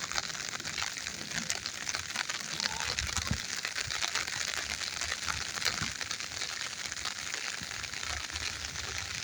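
Light rain at its tail end pattering on wet ground and vegetation: a steady hiss full of fine crackling drop ticks.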